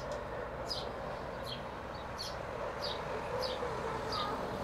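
A small bird chirping over and over, a short high chirp a little more than once a second, over a steady background hiss.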